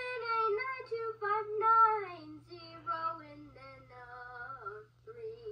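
A high female voice singing unaccompanied, held notes that slide down lower through the middle and climb back near the end, with a short note just before it stops. A steady low hum runs underneath.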